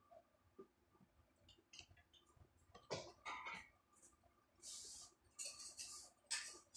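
Faint scattered clicks and clinks from a dog moving about on a tiled floor, with a few short breathy hisses in the second half.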